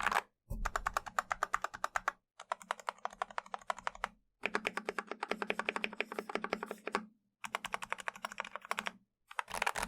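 Stabilised keys of a BM65 polycarbonate mechanical keyboard being pressed rapidly and repeatedly, in five quick runs of muted clacks with short pauses between. The keyboard has lubed and filmed Gateron milky black switches and lubed, clipped, Holee-modded Cherry clip-in stabilisers.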